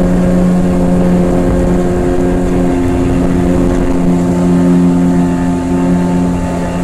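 Small boat's motor running steadily as the boat moves along the water: an even, unchanging hum with a low rumble beneath.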